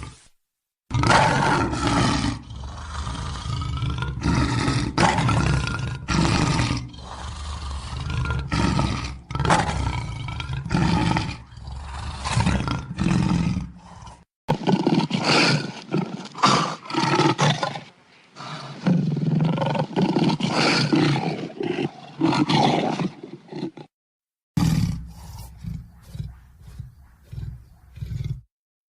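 Lions roaring: a series of loud, repeated roars and grunting calls in three stretches, each cut off abruptly, with brief silences about 14 and 24 seconds in.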